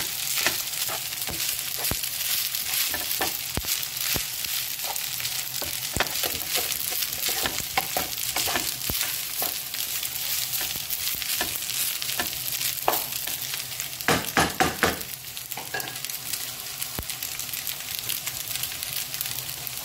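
Rice and sautéed vegetables sizzling steadily in a hot pan while being stir-fried, the utensil scraping and knocking against the pan; a quick run of knocks about fourteen seconds in.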